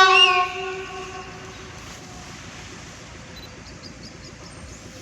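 Train horn sounding one short blast that fades after about a second and a half, followed by a steady low rumble of background noise.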